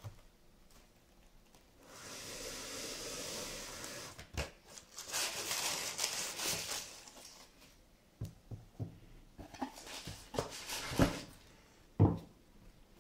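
Tissue paper and a cardboard shoebox rustling as sneakers are lifted out by hand, then a few knocks as the shoes are set down on a wooden desk.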